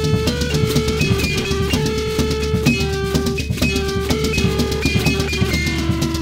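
Drum kit played in fast, busy strokes of sticks and mallets. Over the drumming runs a line of held, pitched notes that change about every half second, with one longer note near the end.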